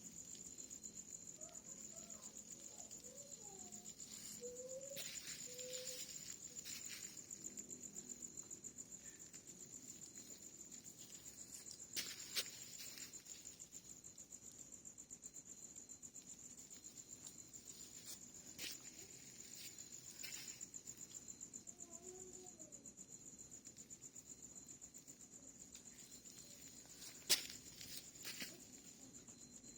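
Leftover rainwater dripping onto the ground in scattered single drops, two of them noticeably sharper, over a steady high insect trill, a cricket. A few faint short calls, likely from birds or frogs, come in early and again in the second half.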